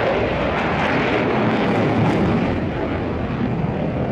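Boeing F-15SG fighter jet's twin engines, a loud, steady jet noise as the aircraft climbs vertically while releasing flares.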